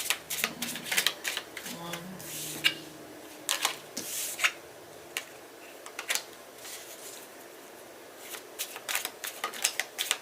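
A tarot deck being shuffled by hand: a quick run of card snaps and flicks that thins out in the middle and picks up again near the end.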